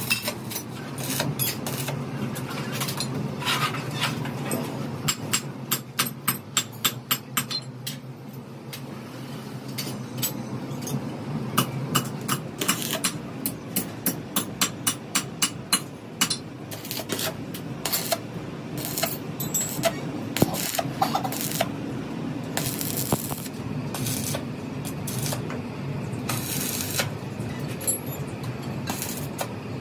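Stick welding brackets onto a steel air-compressor tank: the arc crackles with sharp irregular pops and runs of quick clicks, over a steady low hum.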